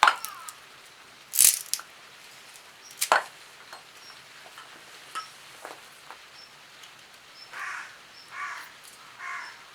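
Firewood being worked by hand: three sharp cracks about a second and a half apart, then three short rasping strokes near the end.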